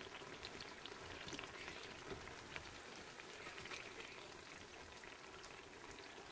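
Batter-coated ripe plantain slices deep-frying in hot oil: a faint, steady sizzle with scattered small crackles and pops.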